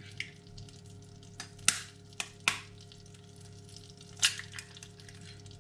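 An egg frying quietly in a wok over a steady low hum, broken by a few sharp taps and clicks; the last, about four seconds in, comes as a second egg is knocked against the wok's rim to crack it.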